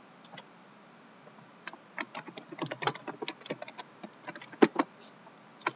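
Typing on a computer keyboard: keys clicking in short irregular runs, starting about a second and a half in, with a louder key strike near the end.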